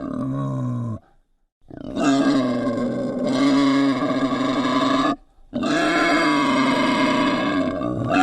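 Wild boar squealing in long, harsh, pitched calls: one call ends about a second in, then two long calls of about three seconds each follow, with a brief break between them.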